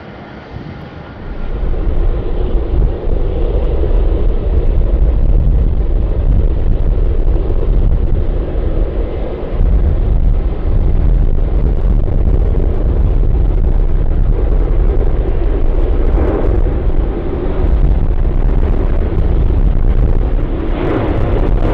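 Jet airliner's engines at takeoff thrust at close range: a loud, deep rumble that comes up sharply about a second and a half in and holds, swelling harsher twice in the second half.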